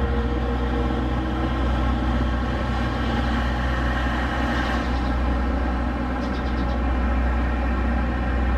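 Kiro 47 diesel railcar idling steadily while standing at the platform.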